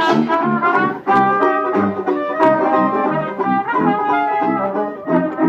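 Live Dixieland-style band playing: sousaphone bass notes on a steady beat under trumpet, trombone and clarinet lines, with a strummed banjo.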